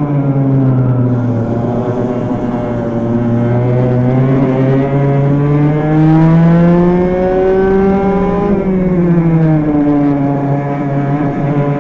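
Two-stroke racing kart engine heard onboard at racing speed. Its note dips in the first second or so, climbs steadily for about six seconds, falls sharply about eight and a half seconds in as the kart slows, then holds and begins to rise again.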